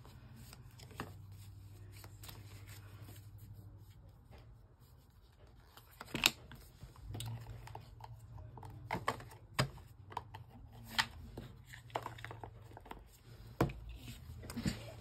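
Small stack of thin printed scripture cards handled by hand: soft rustling as the cards are flipped and shuffled, with scattered sharp clicks as card edges snap together, the loudest about six seconds in.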